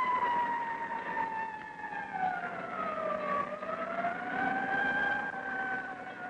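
Ambulance siren wailing, its pitch sliding slowly down and then rising again about halfway through.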